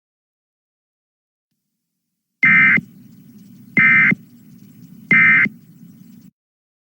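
Three short bursts of Emergency Alert System digital data tones, about a second and a half apart, after about two seconds of silence: the end-of-message code that closes an EAS alert. A low hum runs beneath and between the bursts and stops shortly after the last one.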